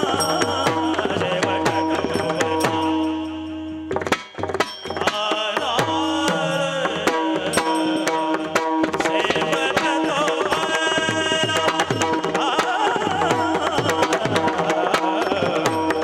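Marathi devotional kirtan music: singing over a mridang (pakhawaj) barrel drum, small brass hand cymbals (taal) and a harmonium, with a brief break about four seconds in before the drumming and cymbals pick up again.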